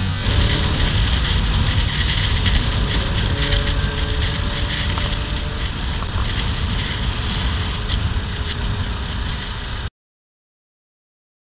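Wind noise on the microphone of a motorcycle-mounted camera, over the steady engine and road noise of a motorcycle riding along. It cuts off abruptly to dead silence near the end.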